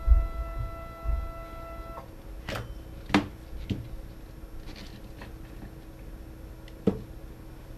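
Kudo3D Titan 1's linear-stage stepper motor whining steadily as it raises the build plate, stopping abruptly about two seconds in. A few sharp clicks and knocks follow over a low hum.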